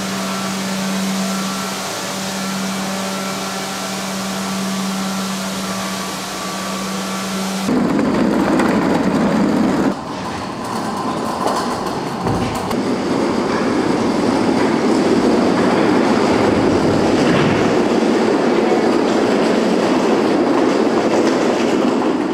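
A walk-behind floor scrubber running, a steady motor hum over a hiss, which stops abruptly about 8 seconds in. It gives way to the rumble of plastic crates on caster wheels rolling over a stone-tile floor, with one low thud about 12 seconds in.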